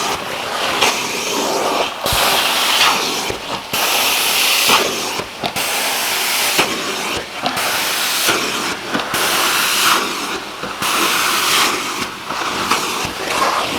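Carpet-cleaning hot-water extraction wand running, with a loud hiss of suction and spray in repeated strokes that break off briefly every second or two.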